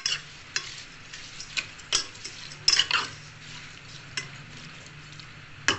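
Metal ladle stirring sliced raw green mango and sugar in a steel pot: irregular scrapes and clinks of metal on metal, loudest about two and three seconds in.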